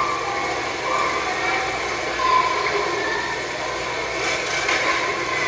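Steady, noisy room din with faint, indistinct voices coming and going; no clear ball strikes stand out.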